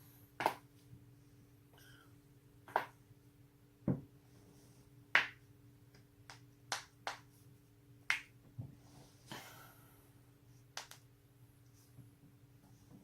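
Human joints cracking: a string of about ten sharp, separate pops at uneven intervals, roughly one a second.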